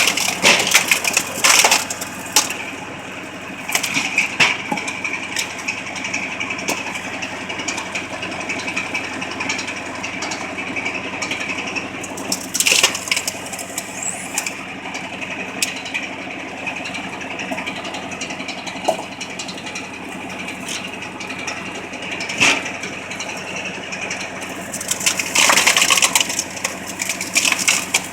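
A homemade tractor PTO-driven log splitter working on firewood, over the tractor's steady engine hum. Wood cracks and splinters in loud bursts near the start, around the middle and again near the end.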